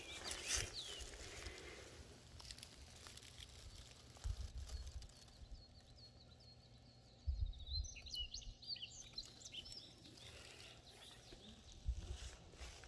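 A songbird calls a quick run of short, high chirps about halfway through. Low bursts of wind rumble on the microphone come and go around it.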